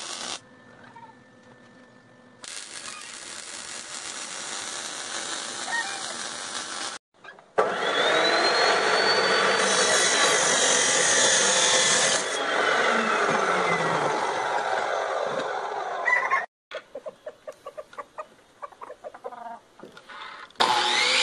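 Welding arc crackling in short runs, then an abrasive chop saw cutting steel angle iron, a loud grinding noise with a whine that climbs and then falls. After a few knocks, a miter saw starts cutting a wooden board near the end.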